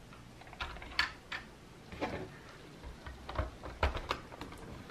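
Plastic LEGO pieces of a built LEGO Creator Mini Cooper model (set 10242) clicking and knocking as the model is handled and its roof is fitted back on: a few scattered, sharp clicks, the clearest about a second in.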